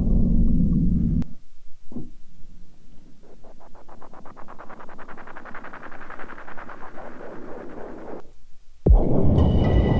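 Omnisphere synthesizer sound-effect patches. A low, explosion-like rumble from the 'Big Flangy Impact' patch cuts off about a second in. Then comes the airy, rapidly stuttering texture of the 'Glitchy Air' patch for about five seconds, and near the end a sudden loud low hit with ringing high tones.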